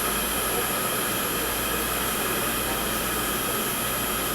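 A steady, unchanging hiss and hum like running machinery, with no separate events.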